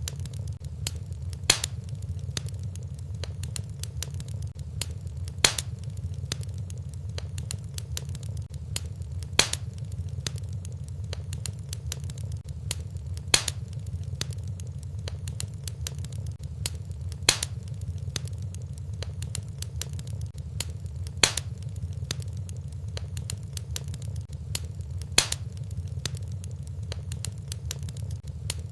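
Wood fire crackling in a fireplace: a steady low rumble under many small crackles, with a sharper pop about every four seconds in an even, repeating pattern, as in a looped recording.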